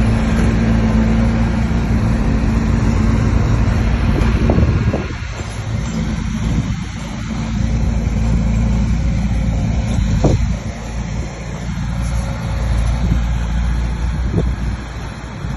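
Heavy diesel engine of earthmoving machinery running hard, its level rising and falling as the load changes, with a few sharp knocks about four, ten and fourteen seconds in.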